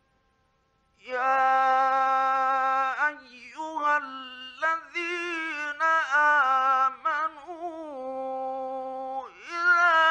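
Male Quran reciter chanting in the melodic mujawwad style from an old 1950s Egyptian radio recording. After about a second of silence, a single voice holds long, ornamented notes with wavering pitch, breaking between phrases.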